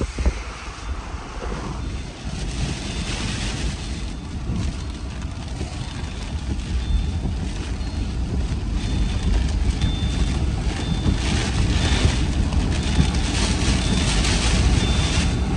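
Wind-driven heavy rain of a wet microburst lashing a moving vehicle, with the gusts rumbling on the microphone. The rush of wind and rain builds steadily louder.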